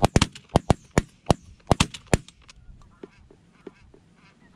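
A rapid volley of about ten shotgun shots from several hunters, packed into the first two seconds, then a few fainter shots. Geese honk in between and after.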